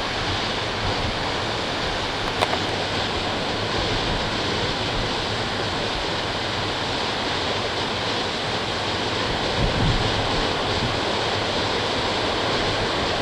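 Sea surf breaking and washing in, a steady rushing noise, with breeze buffeting the microphone and a brief low gust about ten seconds in.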